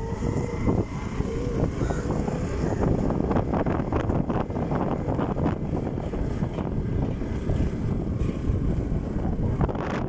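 Wind gusting across a phone's microphone, a continuous low rumble with uneven buffeting.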